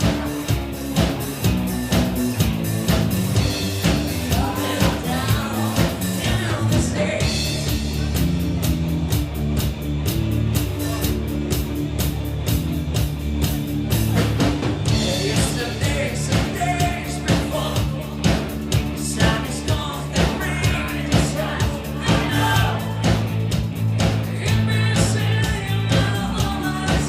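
Rock band playing a song, a singer's voice over a steady drum beat and guitar.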